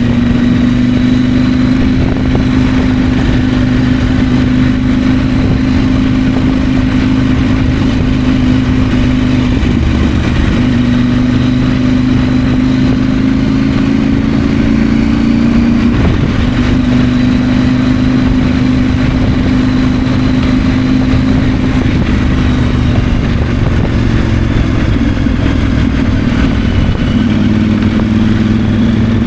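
A 2024 KTM 890 Adventure's 889 cc parallel-twin engine running under way. It holds a steady note that breaks off and picks up again a few times, once with a slow rise in pitch.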